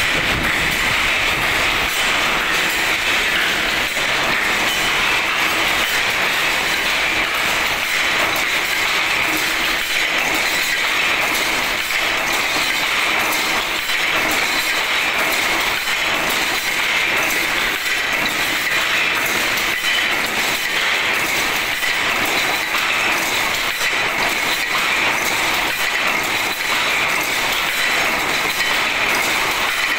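POP jali (wire mesh) making machine running, a steady, rapid metallic clatter.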